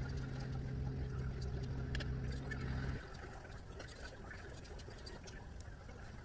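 Faint scraping and soft dabs of a spoon working sticky biscuit dough from a bowl onto stew in a slow cooker. A steady low hum sits under it and cuts off about three seconds in.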